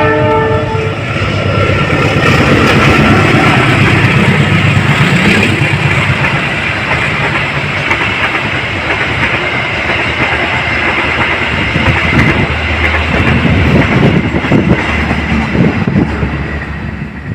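Diesel locomotive passing close, its horn cutting off about a second in, then the engine running and the wagons rolling past over the rails.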